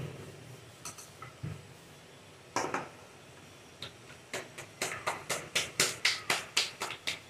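Quick, even slaps, about three or four a second, begin about four seconds in: roti dough being patted flat between the palms. A few single knocks and clicks come before.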